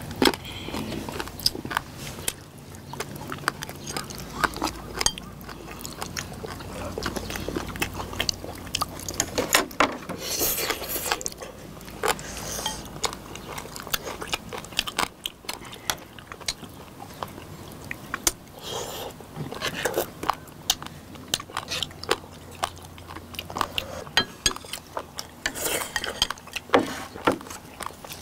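Close-up eating sounds of people chewing braised sea squirt with noodles: slurping, chewing, and chopsticks clicking against the dishes, in many short clicks with a couple of longer slurps.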